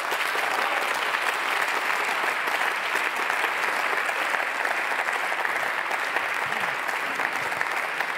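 Many members of parliament applauding in the plenary chamber: steady, even clapping from a crowd of hands.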